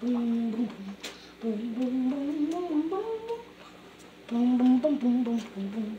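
A single voice humming a wordless melody in three phrases, holding notes and sliding between them, the middle phrase climbing steadily in pitch.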